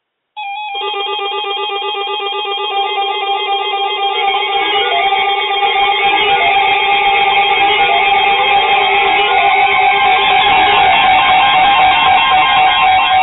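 Instrumental music with plucked, guitar-like notes, starting suddenly about half a second in and growing louder, then beginning to fade out near the end.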